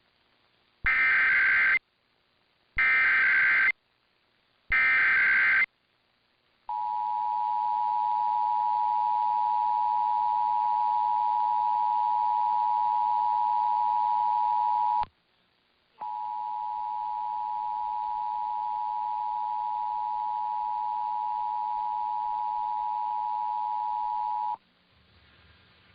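Emergency Alert System SAME header: three short bursts of screeching digital data tones about two seconds apart. Then the EAS two-tone attention signal (853 and 960 Hz) sounds steadily for about eight seconds, breaks off for a second, and sounds again for about eight seconds, opening an EAS test.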